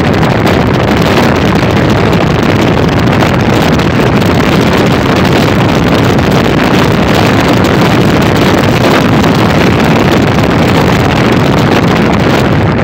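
Wind buffeting the microphone of a phone carried on a moving motorcycle, mixed with the motorcycle's running engine; a loud, steady rush.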